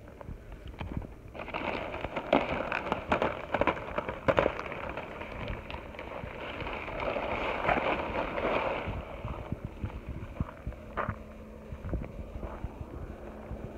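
Large woven plastic sack crinkling and rustling as it is handled, full of sharp crackles; it starts about a second and a half in and dies down after about nine seconds.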